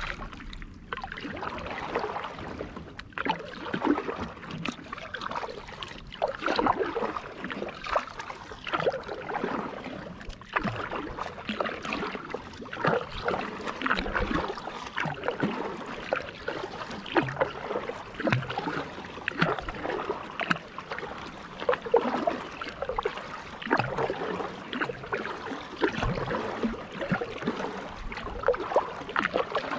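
Kayak paddle strokes in calm lake water: a steady rhythm of blades dipping and splashing, with water trickling and dripping off the paddle between strokes.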